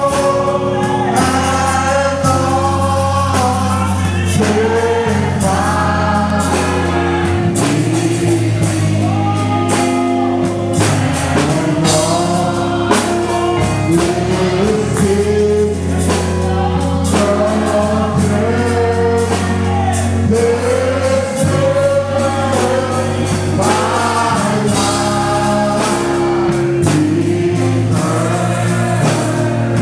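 Gospel worship singing by a praise team and a standing congregation, with steady low bass notes held underneath the voices.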